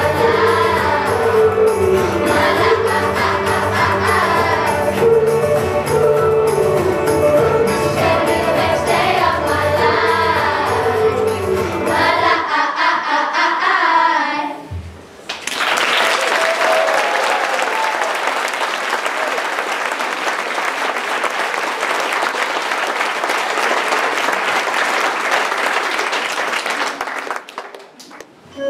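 Children's choir singing with a backing track, the song ending about twelve seconds in. Then an audience applauds, the clapping fading out near the end.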